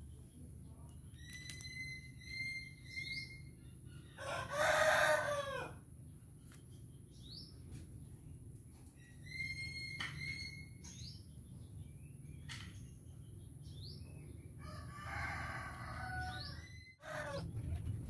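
A rooster crowing twice, loudly about four seconds in and more faintly near the end, with short high bird chirps between the crows over a steady low hum.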